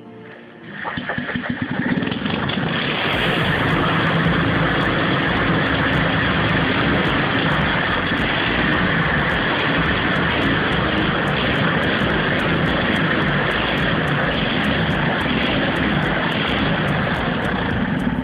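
Vintage Fichtel & Sachs rotary (Wankel) engine catching about a second in and running loud and steady at an even speed, with a fast regular ticking on top, before the sound drops near the end.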